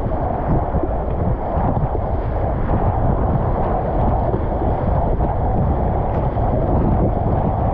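Steady, loud rush of whitewater rapids around a paddled kayak, with a deep rumble beneath the hiss of the water.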